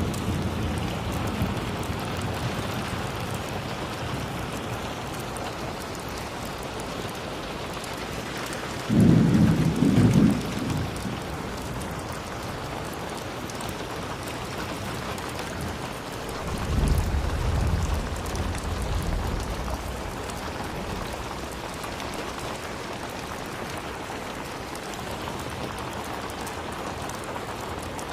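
Steady rain falling, with thunder: a sudden loud crack of thunder about nine seconds in, then a deeper rumble of thunder lasting a couple of seconds a little past halfway.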